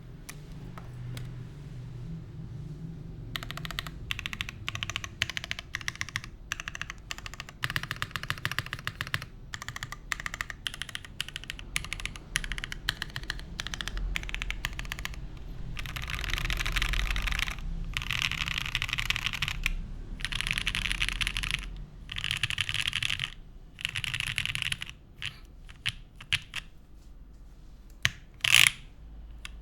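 Typing on a TGR x Monokei Jane v2 ME custom mechanical keyboard with lubed Gateron Cream Soda switches, an aluminium plate and GMK keycaps. Steady rapid keystrokes start about three seconds in and become denser, faster bursts in the second half, then thin out to a few single keystrokes near the end.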